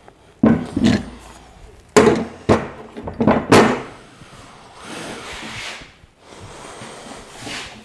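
Steel broadfork parts being handled: several sharp knocks and clanks in the first few seconds, the loudest about two and three and a half seconds in, then two longer spells of quieter scraping or rustling.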